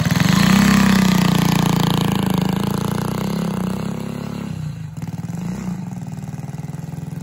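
Ducati 55 moped's small overhead-valve four-stroke engine revving as it pulls away, then running steadily and fading as the moped rides off.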